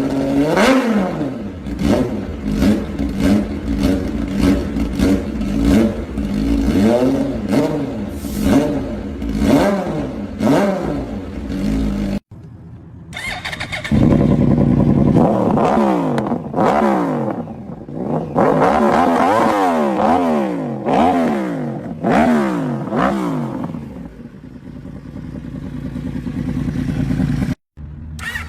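Motorcycle engines revved in repeated throttle blips, the pitch shooting up and falling back about once a second. About twelve seconds in the sound cuts off abruptly and another bike takes over, revving the same way before it settles lower near the end.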